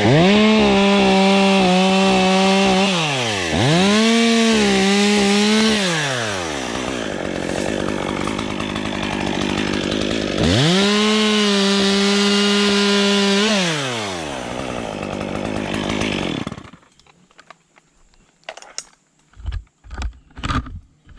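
Two-stroke top-handle chainsaw, a Stihl MS 201, cutting soft, hollow ash wood. It revs up to full throttle three times, with rougher, lower running between the revs, and cuts off about 17 seconds in. A few sharp knocks follow near the end.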